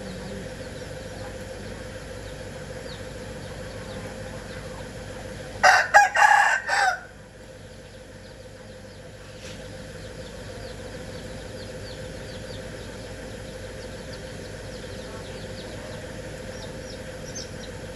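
A rooster crows once, loud, about six seconds in, over a steady background hum.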